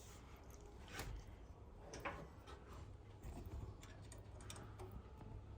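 A few faint, sharp metallic clicks and light knocks as small metal parts, the clutch and its shaft key, are handled while the clutch is lined up on the sawmill's engine shaft, over a faint steady low hum.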